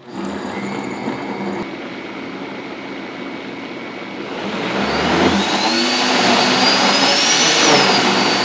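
Vitamix XL blender motor starting up and churning red fruit and gelato base. About four seconds in it is turned up: it gets louder and its whine climbs, then eases off slightly near the end as the speed dial is turned back.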